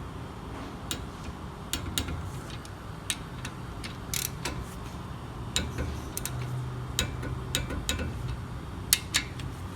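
A ratcheting wrench clicking in short, irregular runs as the brake caliper bolt is turned and tightened down to torque.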